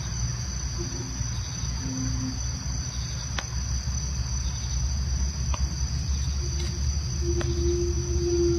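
Crickets chirring steadily in a high band, over a steady low rumble, with a drawn-out low tone in the second half.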